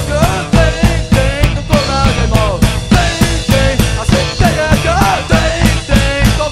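Rock band playing fast punk rock live: a driving drum kit beat, electric bass and distorted electric guitars, with a lead line that bends in pitch over them. Near the end the band moves onto long held chords.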